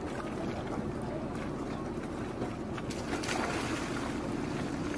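Steady low rumble of an inflatable boat on the open sea, with wind and water noise; a splashy hiss swells about three seconds in.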